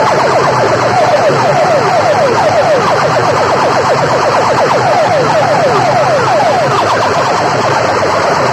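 Siren-like electronic effect blasting through a loud sound system: quick falling chirps repeating several times a second over a low steady hum.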